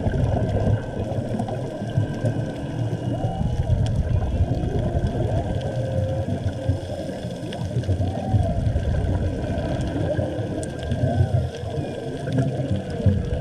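Underwater sound picked up by a camera in its housing: a steady low rumble of water movement, with distant humpback whale song over it, a series of drawn-out calls that rise and fall in pitch.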